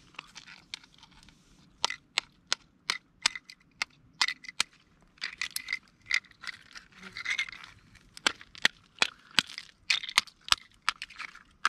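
Cooked lobster shell cracking and snapping as it is broken apart by hand: an irregular run of sharp cracks with bits of crunching in between.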